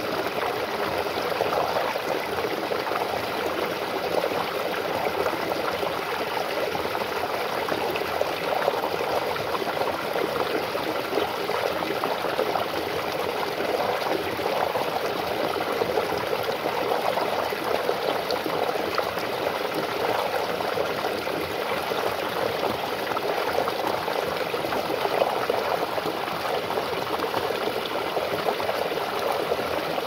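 Small mountain stream cascading over mossy rocks and splashing into a shallow rock pool: a steady, even rush of falling and churning water.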